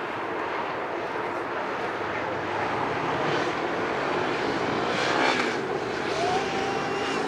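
Jet airliner engines heard close by at the runway end: a loud, steady rush that slowly builds, with faint whining tones and a short rising whine near the end.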